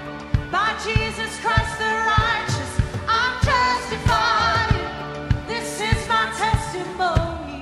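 Live worship song: a woman singing lead with vibrato over electric guitar and keyboard, with a steady low drum beat underneath.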